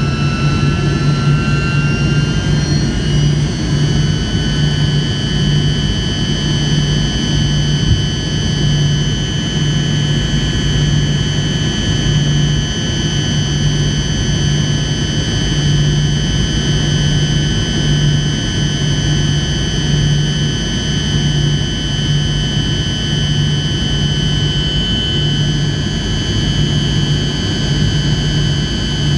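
Cabin noise of a Tupolev Tu-154M in flight: its rear-mounted Soloviev D-30KU-154 turbofans running steadily, heard from inside the cabin. Several high whining tones rise slightly in pitch over the first few seconds and then hold. Under the steady rush of noise, a low hum swells and fades about once a second.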